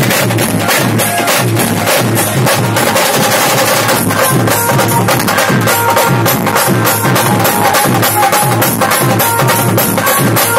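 A live band playing loud, percussion-heavy dance music: a fast, steady drum beat with a melody line above it.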